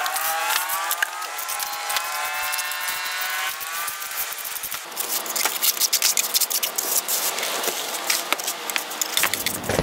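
A vehicle's engine goes by, its pitch gliding, for the first few seconds. Then a steel hand trowel scrapes and taps wet concrete against brick and flue tile in quick irregular clicks and scrapes.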